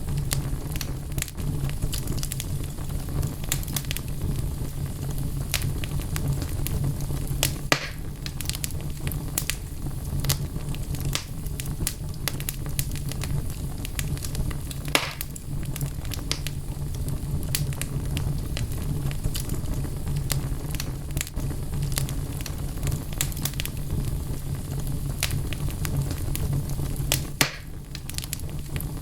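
Wood fire in a fireplace burning, with a steady low rumble and frequent sharp crackles and pops of burning logs; the loudest pops come about eight, fifteen and twenty-seven seconds in.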